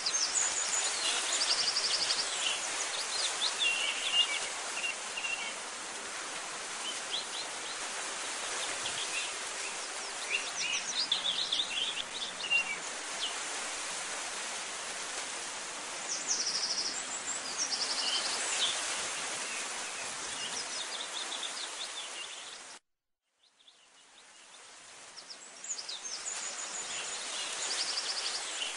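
Birds chirping and trilling over a steady outdoor hiss. The sound cuts out completely about 23 seconds in, then fades back up.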